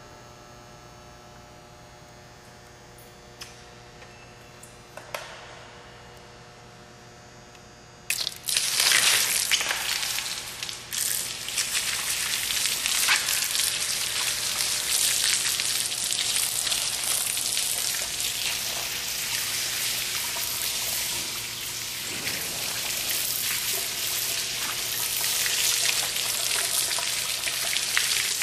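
A low steady hum with a couple of faint clicks. About a third of the way in, a jet of water begins pouring and splashing down onto the aluminium case of a sealed, fanless PC, and it keeps up a steady, dense spatter.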